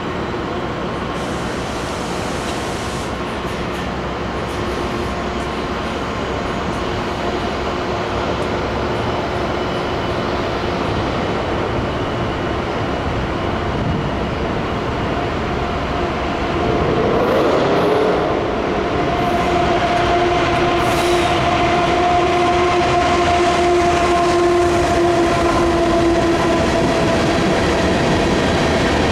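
Union Pacific freight train: the diesel locomotive draws near with a steady rumble that slowly grows louder, then swells and drops in pitch as it passes about two thirds of the way through. Loaded covered hopper cars then roll by, with steady ringing tones over the rolling noise.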